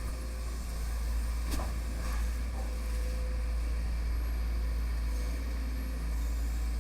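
Sumitomo SH210 excavator's diesel engine running steadily with a deep rumble, with a short knock about one and a half seconds in.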